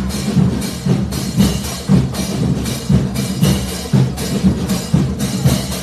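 School marching band's percussion section, drums and cymbals, playing a steady march beat with accented strokes about twice a second.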